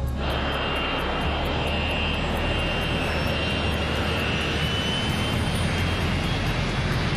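Jet airliner engines running steadily, a dense rushing noise with a held high-pitched whine over a low hum.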